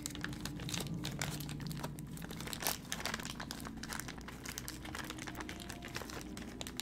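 Clear plastic bag crinkling as it is handled and pulled at by hand, a run of irregular crackles with one sharper crackle a little under three seconds in.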